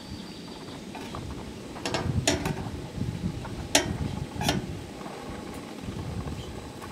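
Metal tongs and a fork clinking and scraping against a stainless steel pan while wet wool is lifted and turned in hot dye water. A few sharp clinks come about two, two and a half, four and four and a half seconds in, over a steady low background.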